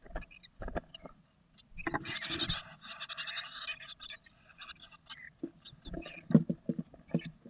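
Great tit nestlings, close to fledging, begging in a shrill, rapid chorus during a feeding visit inside a wooden nest box. Their claws scratch and their wings flutter against the wood, with a sharp knock about six seconds in.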